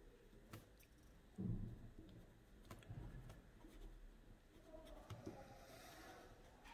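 Near silence with faint handling sounds of annotating: a few light clicks, a soft low thump about a second and a half in, and brief light scratching of writing near the end.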